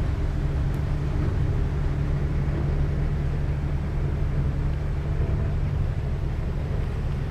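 Steady low drone of a passing ship's engine carried across the water.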